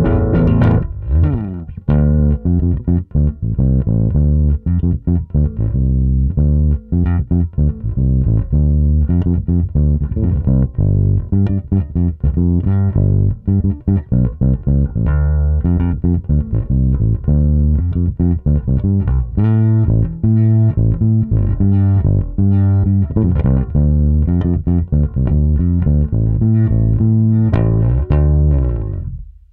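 Electric bass guitar played fingerstyle: a busy line of short plucked low notes. It ends on a held note that cuts off about a second before the end.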